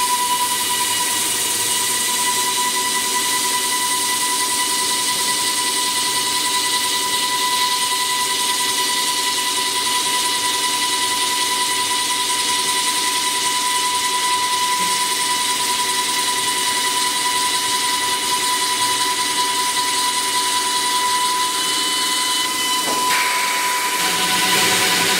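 CNC plate drilling machine running: a steady high whine over a hiss, with the whine shifting and dropping away a couple of seconds before the end.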